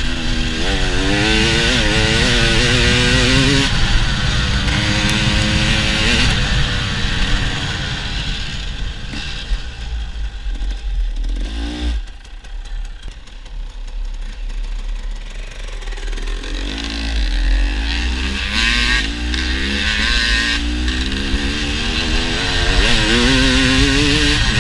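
Dirt bike engine revving up and down repeatedly as the bike is ridden, easing off to a quieter stretch around the middle, then revving hard again towards the end, over a steady low rumble.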